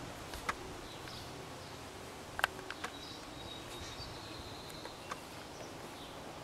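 Outdoor ambience: a steady background hiss with faint high chirps, likely birds or insects, and a handful of short sharp clicks, several of them bunched together in the middle.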